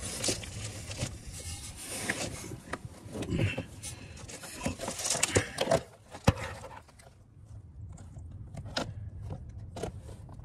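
Irregular scrapes, clicks and knocks of handling noise as camera gear and equipment are moved about, busier and louder for the first six seconds and then thinning to scattered ticks.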